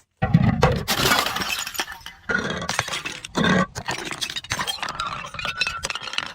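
Glass breaking: a sudden crash, dense crackling of shattering glass, two more heavy hits, then many small clinks and crunches of glass pieces.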